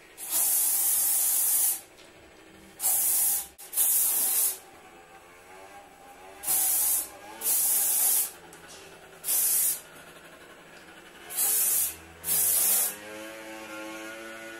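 Hairspray can sprayed in eight short hissing bursts, one braid at a time, setting braided hair. The first burst lasts about a second and a half and the rest under a second each.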